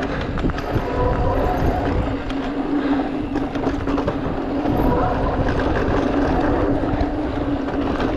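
Giant Reign E+ electric mountain bike ridden on dirt singletrack: a steady hum from the pedal-assist motor over a rumble of tyres and wind on the camera, with small clicks and rattles from the bike over bumps.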